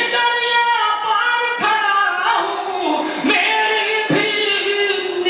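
A man singing a line of Urdu poetry through a microphone and hall PA, a melodic sung recitation (tarannum) with long held notes that slide in pitch.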